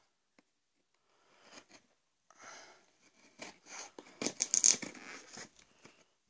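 Packaging of a mini fridge being handled and torn open: irregular rustling, crinkling and tearing, loudest a little past the middle.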